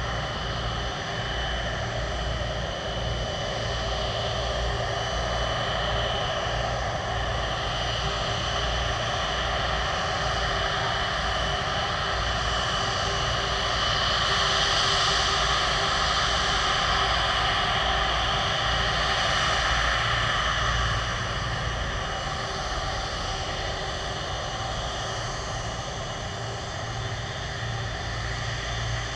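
The Rolls-Royce Trent 772B turbofans of an Airbus A330-243 running at taxi power: a steady jet whine of several high tones over a rushing noise. It grows louder about halfway through, then eases off.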